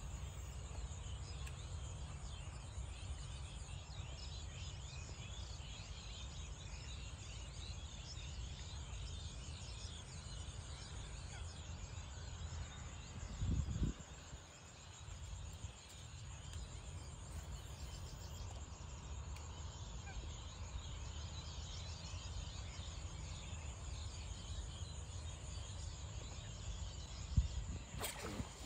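Faint outdoor ambience: a steady low rumble under many small, scattered bird calls and a steady high hiss, broken by a brief thump about halfway through and another near the end.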